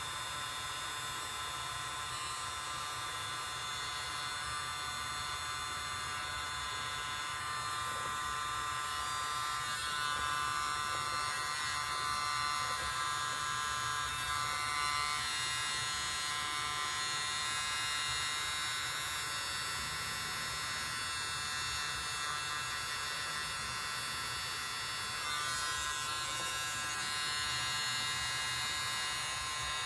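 A miniature battery-powered toy leaf blower (the World's Smallest Leaf Blower) running steadily, its tiny motor and fan giving a constant high-pitched buzz with slight swells in loudness.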